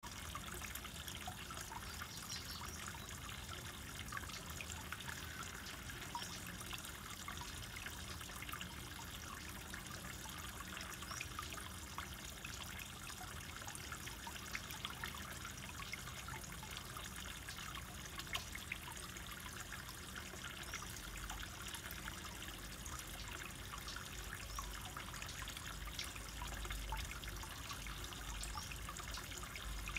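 Water trickling and dripping steadily into a koi pond, a faint continuous patter of small drops.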